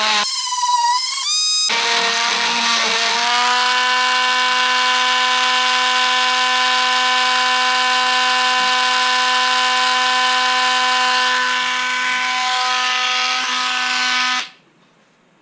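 Dremel rotary tool with a burr bit, running at high speed as it burrs out a hole in the plywood bulkhead. The pitch rises in the first few seconds, then holds as a steady high whine, and it stops suddenly near the end when it is switched off.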